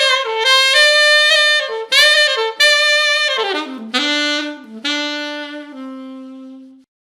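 Solo saxophone playing a short melodic phrase: a few separate notes, then a run that falls to a lower register a little past the middle, ending on a long held low note that fades out near the end.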